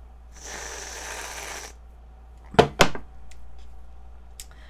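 Reddi-wip aerosol whipped-cream can spraying cream onto a slice of castella: a hiss lasting about a second and a half. About a second later come two sharp knocks in quick succession, the loudest sounds.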